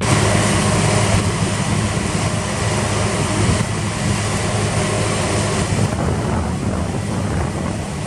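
New Holland CX 860 combine harvester running steadily with a low engine hum while unloading grain through its auger into a trailer.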